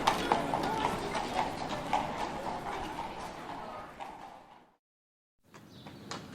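Horse hooves clip-clopping, a steady run of hoofbeats that fades out about four and a half seconds in; after a second of silence, hoofbeats start again near the end.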